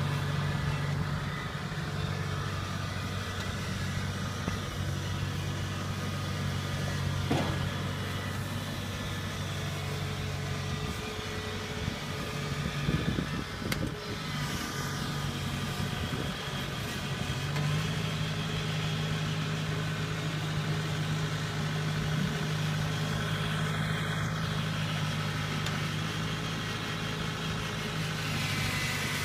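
Kubota rice combine harvester's diesel engine running steadily as the tracked machine works through a wet paddy. The engine note wavers for a few seconds near the middle, then holds steady again a little higher.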